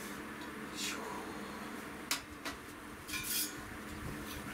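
Stainless-steel parts of a Lixada wood-burning camp stove clinking together as they are handled: a few light metal clinks, with a cluster of them about three seconds in.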